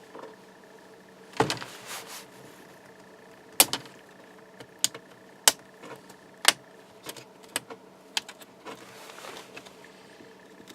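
Plastic display bezel of an HP EliteBook 840 G2 laptop being pried off, with a string of irregular sharp snaps and cracks, about one a second. The snapping is the adhesive tape under the bezel letting go, not the plastic breaking: it sounds worse than it is.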